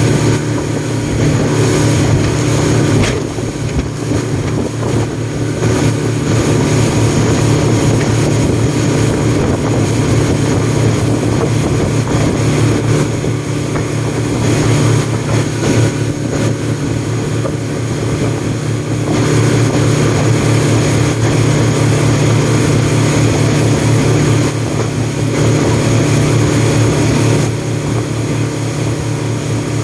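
Speedboat engine running steadily while the boat is underway, with wind buffeting the microphone over the drone.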